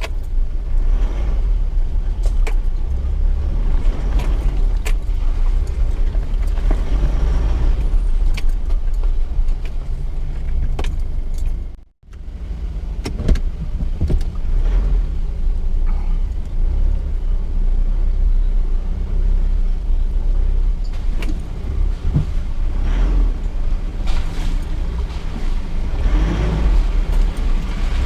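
Mitsubishi Triton ute's engine running inside the cab while driving over rough off-road ground, a steady low rumble with scattered knocks and clunks. The sound cuts out completely for a moment near the middle.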